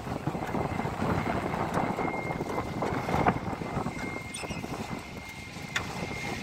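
Diesel walk-behind concrete saw running while its blade wet-cuts a concrete slab: a steady engine drone with a faint, thin whine from the blade.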